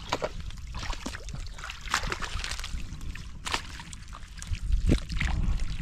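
Hands groping and sloshing through shallow muddy water and mud, with irregular splashes and wet squelches.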